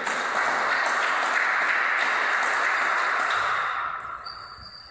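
Spectators applauding after a point in a table tennis match. The clapping is steady at first, then fades out about four seconds in.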